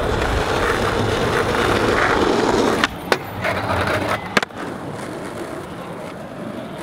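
Skateboard wheels rolling on rough asphalt, then a sharp pop about three seconds in as the board goes up onto a ledge, a short grind along it, and a clack on landing about a second later, followed by quieter rolling.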